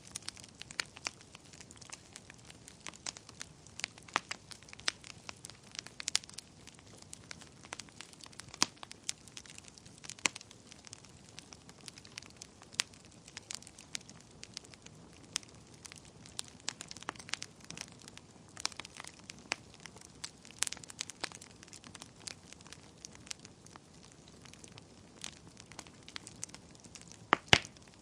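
Wood fire burning in a fireplace: irregular sharp crackles and pops over a faint steady hiss, with a louder burst of pops near the end.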